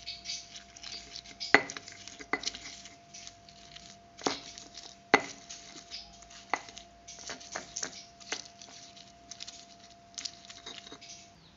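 Stone pestle crushing and grinding fried green chillies, shallots, garlic and tomato in a stone mortar (cobek), with irregular scraping and squishing and several sharp stone-on-stone knocks, the loudest about one and a half seconds in.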